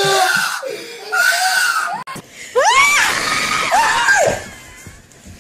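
A person screaming: short yells at first, then two long, high shrieks that rise and fall in pitch, about two and a half and four seconds in.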